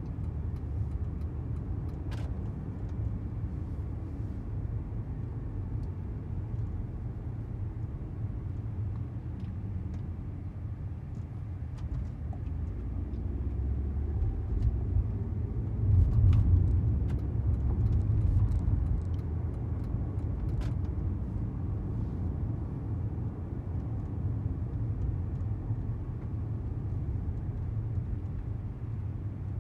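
Inside the cabin of a moving Mercedes-Benz CLS (W219): a steady low engine and road rumble that swells louder for a few seconds about halfway through, with a few faint clicks.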